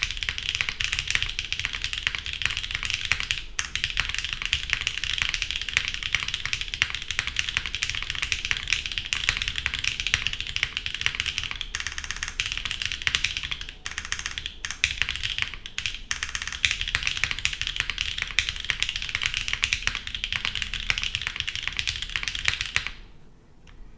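Fast continuous typing on a gasket-mounted mechanical keyboard with NK Cream linear switches, an aluminium plate and GMK keycaps: a dense stream of clacks and bottom-outs. It stops about a second before the end.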